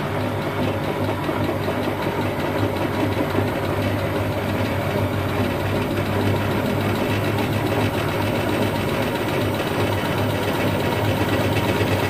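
Siemens Siwamat 7163 iQ washing machine spinning its drum at a steady speed: an even motor hum and whine with machine vibration, slowly getting a little louder.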